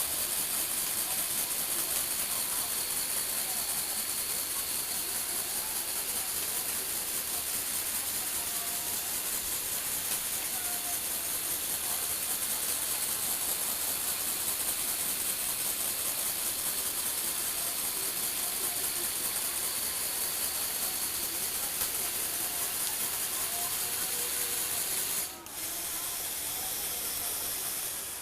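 Lego Technic electric motor and gear train running steadily, a hissy mechanical whirr, with a brief drop-out about 25 seconds in.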